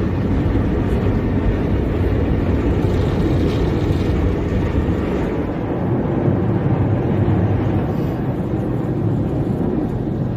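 Automatic tunnel car wash heard from inside the car's cabin: cloth brushes scrubbing across the windshield and body under water spray and foam, a steady, dense, low-pitched noise.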